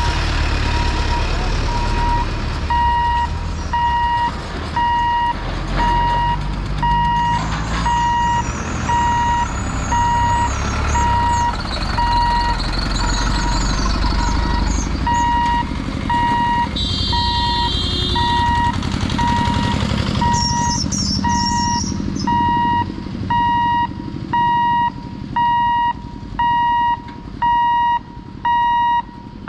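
A level-crossing warning buzzer beeping steadily about once a second in one high tone, sounding as the gate barriers are lowered. Under it, a lorry's diesel engine rumbles close by while crossing, then fades about two-thirds of the way through.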